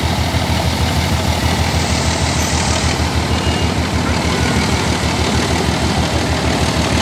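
Diesel locomotive running loud as it passes close by, with a fast, even low pulsing beat, over the idling of motorbike engines.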